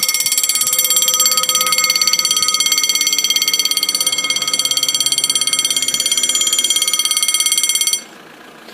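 French level crossing warning bell giving a high, rapidly pulsing electronic ring while the barriers lower, warning of an approaching train. It cuts off suddenly about eight seconds in, as the barriers come to rest across the road.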